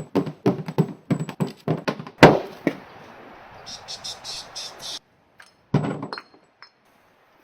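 Hand tools and engine parts knocking and clattering during an engine teardown. A rapid run of knocks leads to one loud bang a little after two seconds, then a short hiss, and one more brief clatter about six seconds in.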